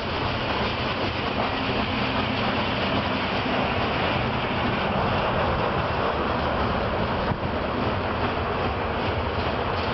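Loaded covered hopper grain cars of a freight train rolling past: a steady, loud noise of steel wheels on rail and the cars rattling as they pass.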